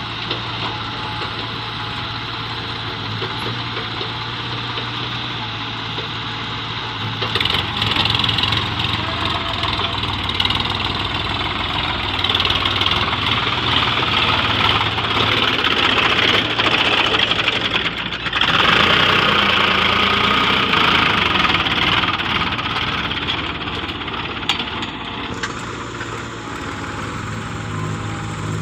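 Sonalika tractor's diesel engine running steadily. It is louder through the middle stretch, and the sound changes abruptly a couple of times.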